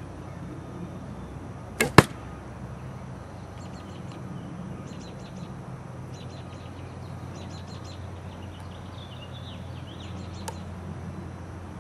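An arrow striking a linothorax cuirass of laminated flax linen, glue and leather: two sharp cracks close together about two seconds in, the second louder. Faint bird chirps follow.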